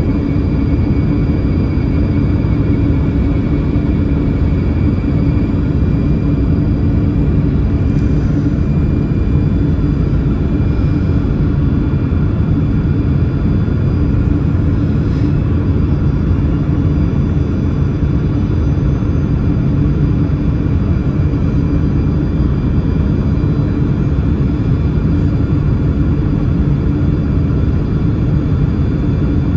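Steady cabin noise inside a Yakovlev Yak-40 in flight: the even hum and rush of its three rear-mounted Ivchenko AI-25 turbofan engines and the air past the fuselage, with a few faint steady whines.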